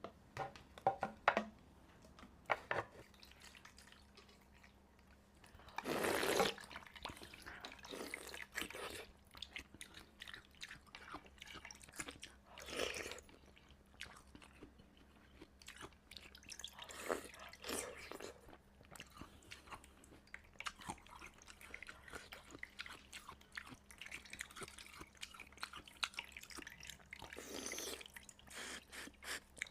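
Ice being bitten and crunched in the mouth, close-miked, as a run of sharp cracks and crunching chews with the loudest bite about six seconds in.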